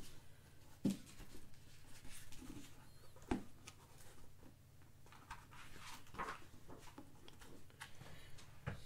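Hardcover book being handled close to the microphone: two sharp knocks, one about a second in and one about three seconds in, then scraping and rustling as the cover is opened.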